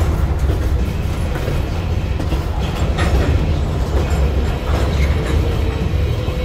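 A CSX freight train of empty stone cars rolling past, with a heavy steady rumble and metallic clanks from the wheels and cars, about three seconds in and again near five seconds.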